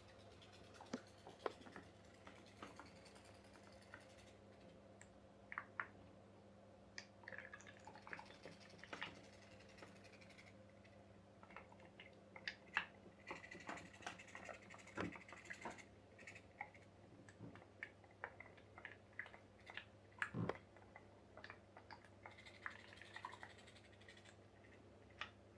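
Faint, irregular clicks and ticks from a tea-light-heated pop pop boat running on water, over a low steady hum.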